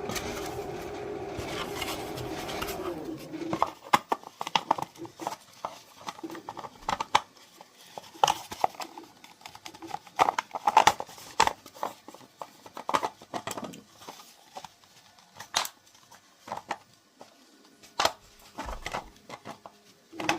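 Hard plastic parts of a two-piece 3D-printed filament spool being handled and twisted together: irregular clicks, taps and light knocks. A steady mechanical hum sounds at first and stops about three and a half seconds in.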